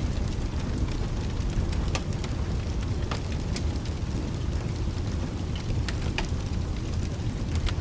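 Mixed rain and fireplace ambience: steady rain with a continuous low rumble underneath, and a wood fire's sharp crackles and pops scattered irregularly through it.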